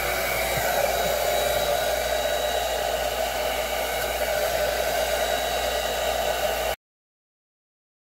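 Jinri 1875-watt negative ionic hair dryer running steadily while drying hair: an even rushing whir with a faint high whine in it. It cuts off suddenly near the end.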